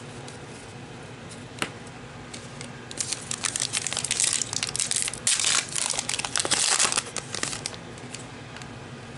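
Plastic trading card pack wrapper being torn open and crinkled, in a stretch of about four and a half seconds, after a single sharp click.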